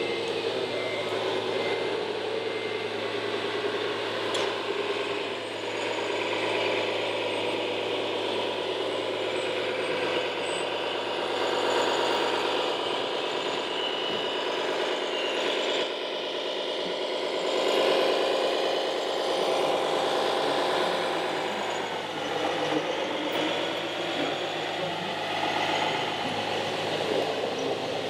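Radio-controlled scale articulated dump truck driving, its sound module playing a diesel engine note that rises and falls in pitch as it manoeuvres, with dips and recoveries partway through.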